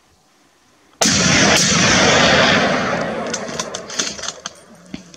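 A single gunshot about a second in: a sharp crack followed by a long rolling echo that fades over about two seconds, then a few faint scattered clicks.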